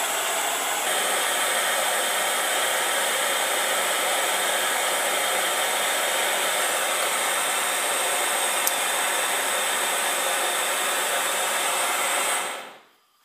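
Gas torch burning with a steady hiss as a steel connecting rod is heated in the flame to expand it for fitting the piston. The hiss stops near the end.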